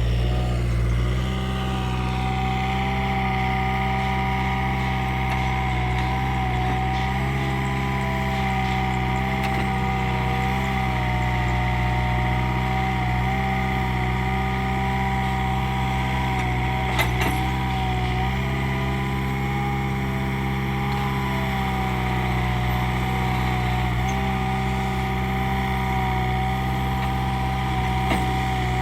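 Mini excavator engine running steadily with a wavering high whine over it. A single sharp knock about seventeen seconds in.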